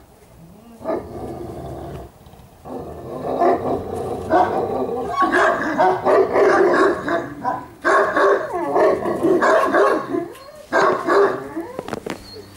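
Central Asian Shepherd dogs, an adult and half-grown puppies, growling and barking as they play together in a near-continuous string of calls, starting about a second in with a short break soon after.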